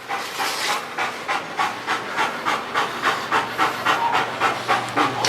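A dog panting rapidly and hard, about four breaths a second, winded from bite work.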